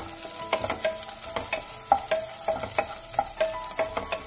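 A wooden spatula stirs chopped onion and green beans frying in a nonstick pot under a light sizzle. It scrapes and knocks against the pot about two to three times a second, and the pot rings briefly after each stroke.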